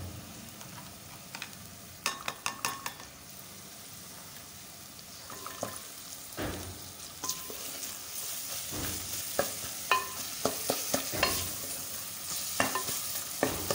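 Sliced onions with garlic and ginger paste sizzling in oil in a metal pot while a wooden spoon stirs them. The spoon knocks against the pot in a quick run of several knocks a couple of seconds in and then at intervals. The sizzle grows louder in the second half as the stirring picks up.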